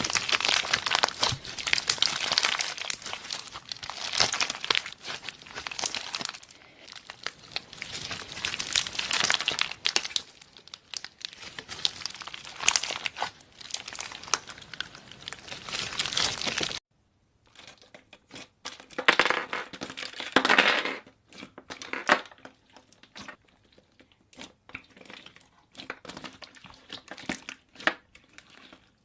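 Slime being squeezed and handled close to the microphone, with dense crinkling and crackling full of tiny clicks. About two-thirds of the way in the sound cuts off abruptly and resumes as sparser clicks and crackles.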